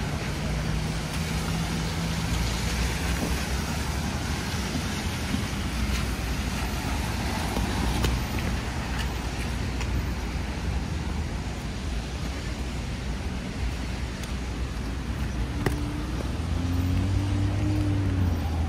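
Heavy rain on a city street with traffic: a steady hiss of rain and wet tyres, with a few sharp ticks. A vehicle engine hum swells near the end.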